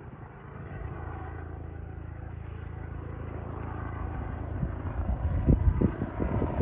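Helicopter overhead: a steady low rumble that grows louder as it comes nearer, with irregular low thumps over the last couple of seconds.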